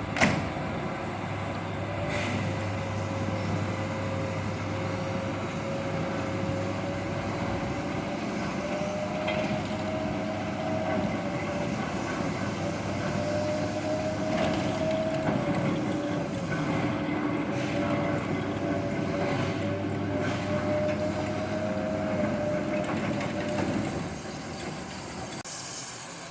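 Locomotive turntable's drive motor whining steadily as the turntable turns under the steam locomotive, with a few sharp metallic clanks; the whine and hum cut out about two seconds before the end as the turntable stops.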